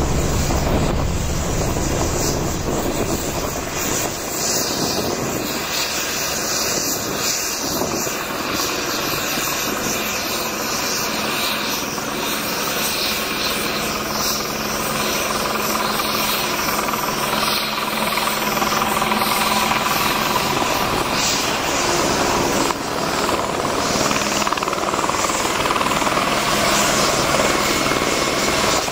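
Airbus H125 (AS350 Ecureuil) helicopter, main rotor and single turbine running as it flies and hovers: a steady rotor and engine noise with no sharp events.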